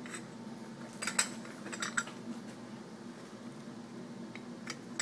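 Light metallic clinks and knocks of metal parts being handled, a few about a second and two seconds in, with a louder clink at the very end, over a faint steady low hum.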